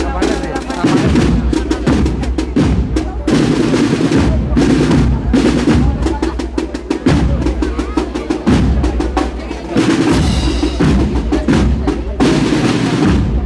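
A Spanish processional marching band (agrupación musical, brass and percussion) playing a march. The drums lead, with dense rapid snare strokes over bass drum beats.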